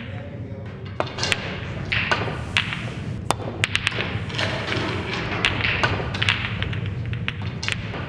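Snooker balls clicking against one another, sharp clicks coming irregularly several times a second, over a low steady hum.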